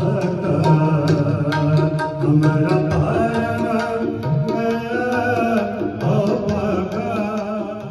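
Sikh kirtan, devotional hymn singing with tabla accompaniment: quick tabla strokes run throughout under wavering, held sung notes.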